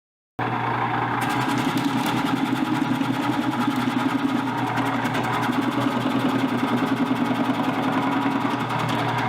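Electric vegetable slicer for julienning radish, running with a steady motor hum and a rapid, even chatter. The sound cuts in abruptly just after the start.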